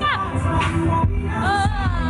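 Loud DJ-played R&B/pop music with a singing voice over a heavy bass beat.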